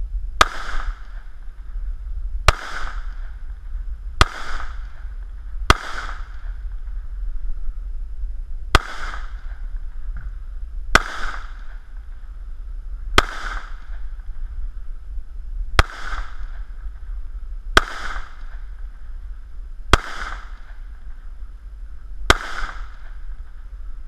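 Semi-automatic pistol fired eleven times in slow succession, about two seconds between shots, each a sharp crack with a short echoing tail, over a steady low rumble.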